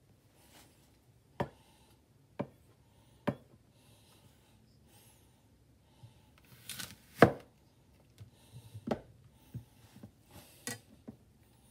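A 300 mm SK-steel gyuto chef's knife cutting down through a whole apple with a short crisp crunch that ends in a sharp knock of the blade on the wooden cutting board, the loudest sound, about seven seconds in. Three sharp knocks on the board come earlier, and lighter knocks and clicks follow as the apple halves are handled.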